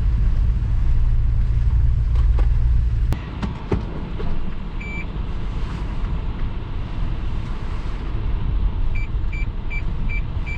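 Low rumble of a car's cabin on the move, loud for the first three seconds and then quieter. A single short beep comes about halfway through, and near the end the car's parking sensor beeps about three times a second.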